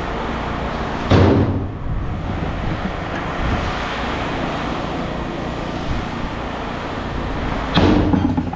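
Steady vehicle noise, with two short louder swells, one about a second in and one near the end.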